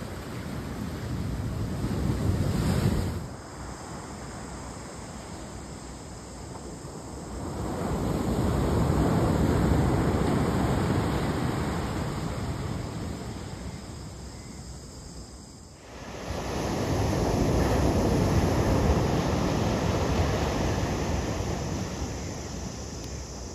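Ocean surf breaking and washing up a sandy beach, swelling and fading in long surges, with wind on the microphone. The sound changes abruptly about 16 seconds in, then swells again.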